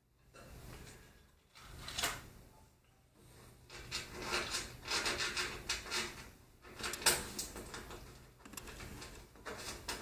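Metal standoffs being threaded by hand into a metal case panel: small clicks and scraping of metal on metal. There is a single click about two seconds in, a busy run of handling from about four to seven and a half seconds, and a last scrape near the end.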